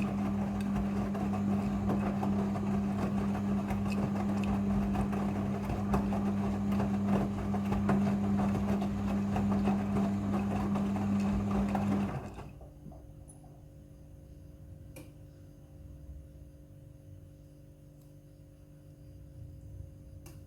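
Front-loading washing machine running in its rinse cycle with a steady mechanical hum, which cuts off suddenly about twelve seconds in, leaving only a faint low hum.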